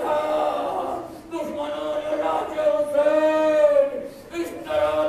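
A man's voice in a drawn-out, melodic chant through a microphone, holding long notes in phrases with short breaks between them.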